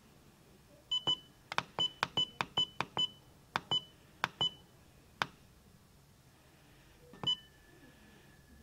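Key beeps from a Luna S handheld electronic magnifier as its mode button is pressed repeatedly. The short high beeps and sharp button clicks come in a quick string for about four seconds, then one more beep near the end. Each beep confirms a press as the display steps through its colour-contrast modes.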